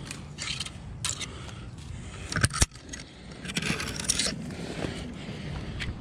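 Tree climber moving on the trunk: leaves and branches rustling and bark scraping against the camera and hands in a few short bursts, with two sharp knocks about halfway through, like climbing hardware clacking.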